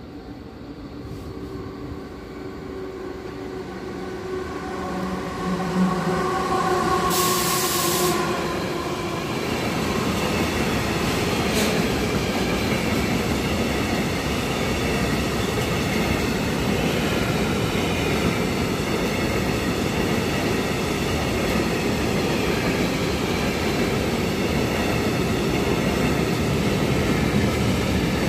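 ÖBB freight train approaching and passing: the locomotive's hum of several steady tones grows louder over the first six seconds, with a short hiss about seven seconds in. A long rake of covered hopper wagons then rolls by with a steady wheel-on-rail rumble and a thin high squeal from the wheels.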